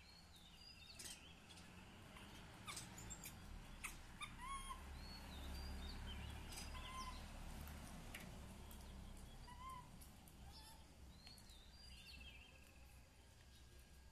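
Faint birds chirping: short rise-and-fall notes scattered throughout, over a low background rumble, with a few soft clicks in the first half.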